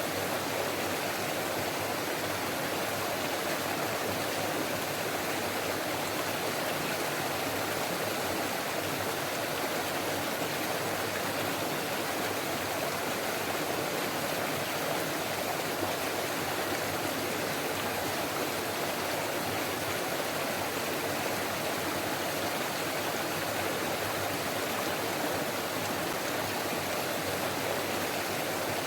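Steady rush and babble of a forest stream flowing over rocks, continuous and unchanging.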